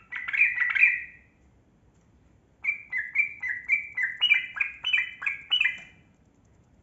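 Yellow-vented bulbul (trucukan) singing: a short, bubbly phrase at the start, then after a pause a longer run of quick, clipped notes, about three or four a second, that step up in pitch toward the end.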